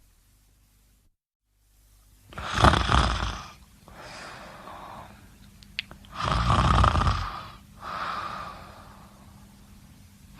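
A person snoring: two loud snores about three and a half seconds apart, starting about two seconds in, each followed by a softer, longer breath. A short click falls between them.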